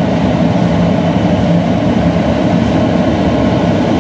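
Steady, loud rush of airflow in a glider cockpit with the small side vent window open.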